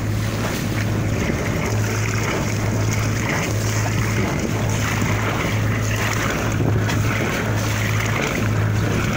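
Sailboat's inboard engine running under way with a steady low hum, its wet exhaust at the stern pumping out cooling water over the rush of the wake and wind on the microphone. The water flowing out of the exhaust shows the raw-water cooling through the repaired heat exchanger is working.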